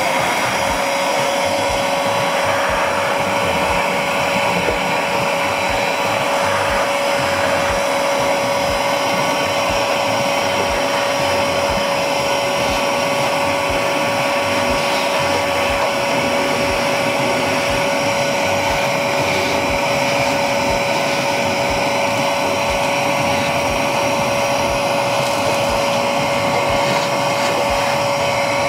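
Cordless 20V ash vacuum (Ash Vault Pro) running steadily with a constant whine over the rush of air, its hose sucking fly ash out of a pellet grill's burn pot.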